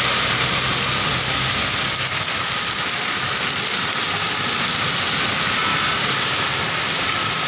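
Vehicles driving through deep floodwater: a bus engine running with its wheels throwing up water in a steady rush, the engine hum fading about two seconds in. Then an SUV ploughs through the water with the same splashing wash.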